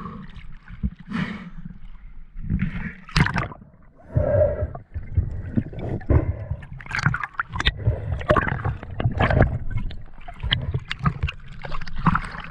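Seawater sloshing and gurgling around a diver's camera at the surface and underwater, with muffled bubbling and many sharp, irregular clicks and knocks.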